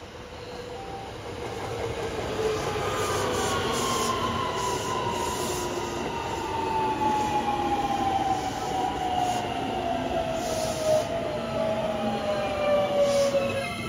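JR West electric commuter train approaching and running past close by. Its motor whine falls steadily in pitch over about ten seconds, over wheel noise with sharp clicks from the rails.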